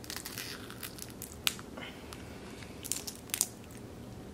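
Crab shell being cracked and picked apart by hand: a run of small crunches and sharp cracks, the loudest about one and a half seconds in and a quick pair near the end.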